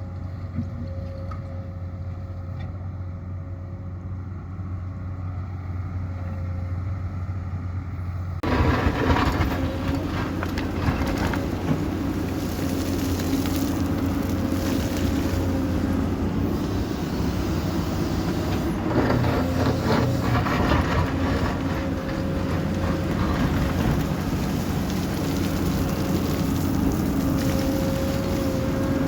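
Excavator's diesel engine running steadily. About a third of the way in the sound jumps abruptly to a louder, rougher working noise that then holds steady.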